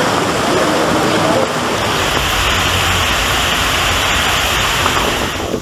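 Torrential rain and rushing floodwater, a steady loud rush of water that turns hissier about two seconds in.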